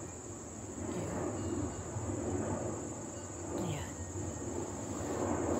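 Steady high-pitched insect chorus of summer crickets, over a low steady rumble.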